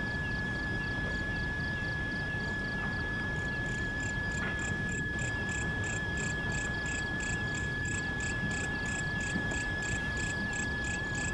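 Night insects calling: one steady high trill with a pulsing chirp, about three a second, that grows stronger about four seconds in.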